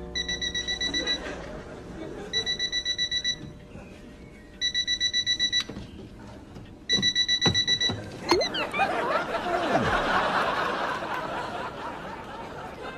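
Electronic alarm clock beeping in four bursts of rapid, evenly pulsed beeps, each about a second long with a pause of about a second between them. About eight seconds in there is a sharp knock, then a spell of laughter that slowly fades.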